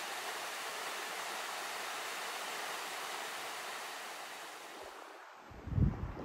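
Small Lake Superior waves washing over sand and pebbles at the water's edge, a steady hiss of water. It fades out, and about five seconds in a gust of wind buffets the microphone with a loud, low rumble.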